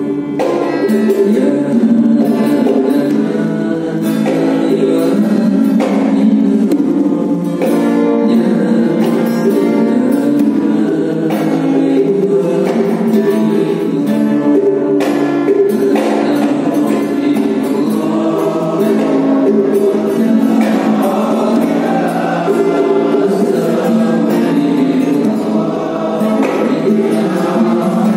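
Men singing a devotional song together in unison, one voice leading through a microphone and the others joining in, held steadily with no break.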